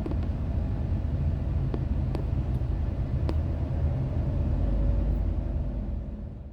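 Steady low road and engine rumble inside a moving car's cabin, with a few faint clicks, fading out near the end.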